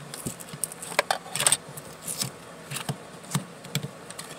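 Plastic trim pry tool scraping and clicking against metal while a cover is pried up: irregular light clicks and scratches.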